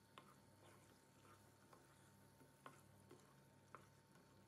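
Faint, irregular clicks of a spatula knocking and scraping against a frying pan as thick chicken curry is stirred, several times over a few seconds.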